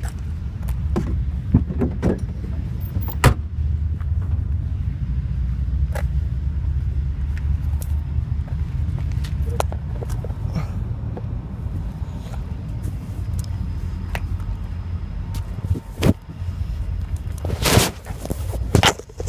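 BMW E30's straight-six engine running with a steady low rumble while overheated, on tap water with no working radiator or coolant. Scattered sharp clicks and cracks sound irregularly over it, with a longer, louder burst near the end.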